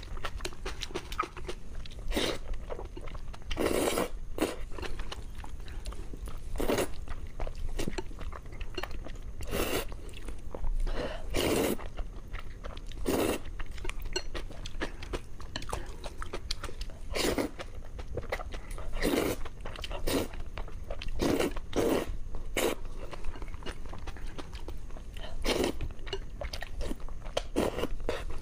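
A person slurping and chewing spicy instant noodles, with a short slurp every few seconds between bouts of chewing.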